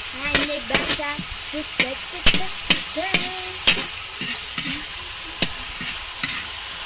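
Pancit noodles being stir-fried in a pan: a steady sizzle, with the cooking utensil clacking and scraping against the pan at irregular moments.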